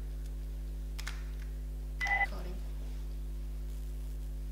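Steady low electrical hum. A faint click comes about a second in, and a brief beep-like tone of two pitches comes about two seconds in.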